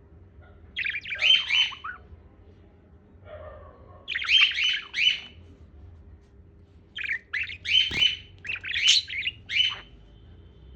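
Pet parrot chirping and squawking in three short bursts of quick, high calls, the last burst the longest.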